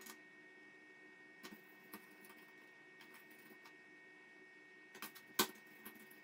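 Faint scattered clicks and scrapes of metal tweezers against a graphics card's plastic fan blades and shroud as dust is wiped off with isopropyl-soaked cotton, with one sharper click about five seconds in, over a faint steady hum.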